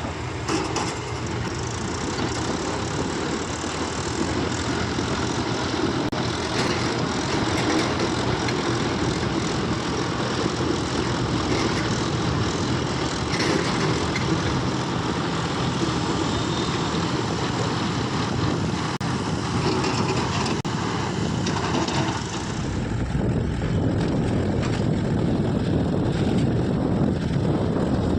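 Diesel engine of heavy machinery running steadily, with the sound changing about 22 seconds in to a heavier low rumble.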